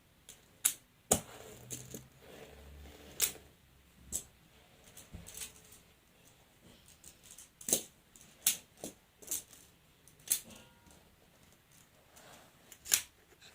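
Plastic magnetic building tiles clicking and clacking as they snap together and are set down, in irregular single knocks a second or so apart.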